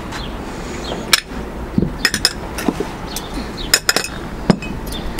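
Small glass tea glasses, glass saucers and metal teaspoons clinking and knocking as they are set down on a table: a string of sharp clinks, with a quick cluster about two seconds in and another near four seconds.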